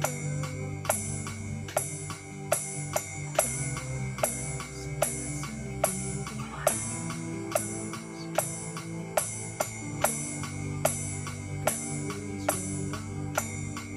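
Roland electronic drum kit played with sticks in a slow, steady beat, a sharp hit about every 0.8 s with cymbal and snare sounds. Underneath is a backing track of held chords.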